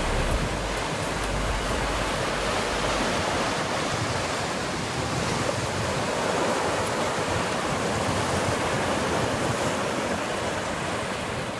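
Sea surf washing steadily onto the beach, a continuous hiss of breaking waves, with low wind rumble on the microphone for the first few seconds.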